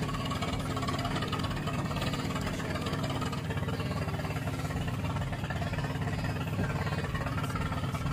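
A boat engine running steadily at idle: a low, even drone with no change in speed.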